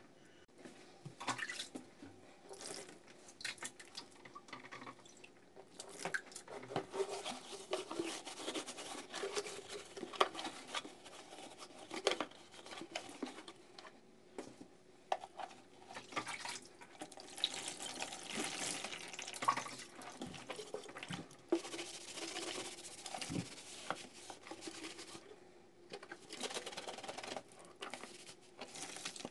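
Water sloshing and splashing in a plastic washbasin as a plastic car coolant reservoir tank is rinsed: lifted out with water pouring and dripping off it, then dunked back, with occasional light knocks.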